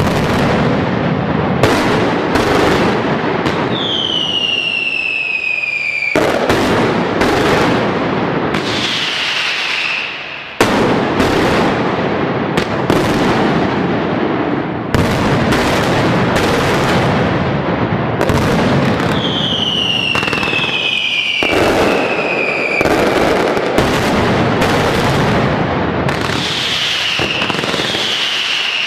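Mascletà firecrackers going off in rapid, continuous volleys: a dense, unbroken rattle of loud bangs. Falling whistles from whistling fireworks rise above it several times. A fresh, louder barrage breaks in suddenly about ten seconds in.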